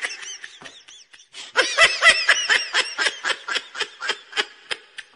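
A person laughing in rapid, high-pitched pulses, about six or seven a second. The laughter breaks off briefly about a second in, then resumes and trails off near the end.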